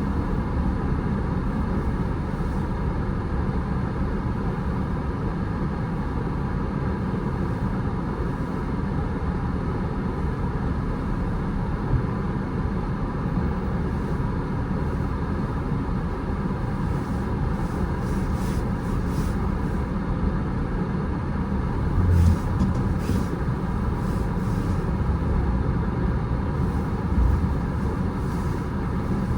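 Steady road and engine rumble of a car being driven, with two brief low thumps in the second half.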